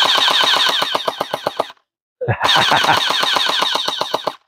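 R99-type electric gel ball blaster firing on full auto in two bursts, about a second and a half and two seconds long with a short pause between. Each burst is a rapid rattle of shots over a high whine.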